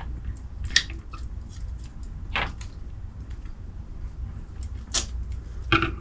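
A few short, sharp clicks and knocks of toy figure parts being handled and fitted together, four spread over several seconds.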